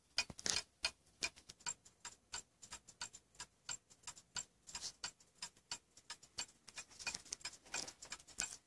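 Quick, even ticking of a small antique mantel timepiece's 8-day fusee movement, its anchor escapement beating with the pendulum.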